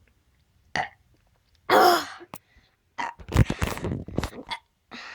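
A child burping on purpose after drinking soda: a loud burp about two seconds in, then a longer one about a second later.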